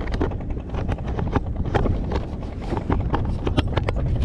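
Wind buffeting the microphone in a steady low rumble, with many irregular light knocks and ticks.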